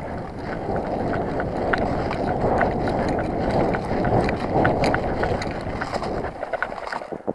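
A person running, with a loud rushing noise on the microphone and scattered clicks of footsteps and rattling gear. It stops suddenly near the end.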